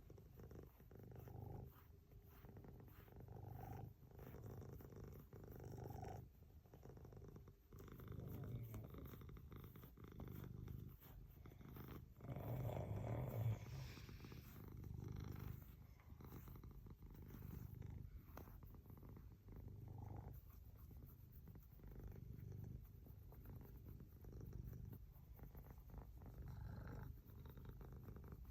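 Faint domestic cat purring, swelling and easing in a steady cycle about every two seconds, with one louder, rougher swell about halfway through.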